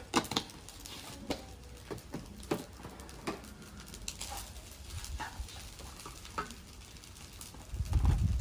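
Wooden spatula knocking and scraping in a wok of fried rice: a dozen or so sharp, irregular clicks and taps, then a louder low thump just before the end.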